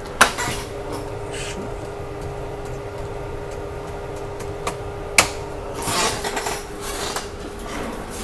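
Hard objects being handled on a repair workbench: a sharp click, another sharp click about five seconds later, then a short run of rubbing and light clatter, over a steady electrical hum.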